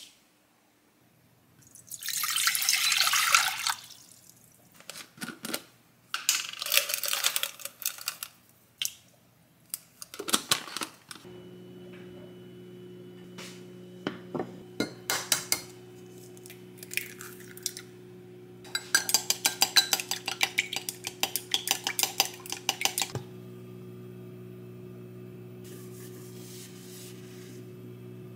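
Kitchen prep sounds of utensils and glassware clinking. From about eleven seconds in comes a steady electrical hum of an induction cooktop. Around twenty seconds in, chopsticks beat eggs against a glass measuring cup in a fast run of clinks lasting about four seconds.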